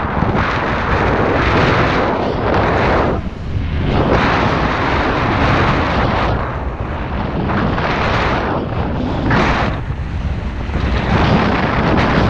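Wind buffeting the microphone at riding speed on a mountain bike descent, over a steady low rumble; the hiss swells and eases every couple of seconds.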